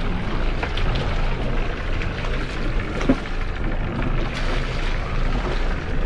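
Steady wind noise on the deck of a sailing yacht at sea over a low rumble, with a few light knocks.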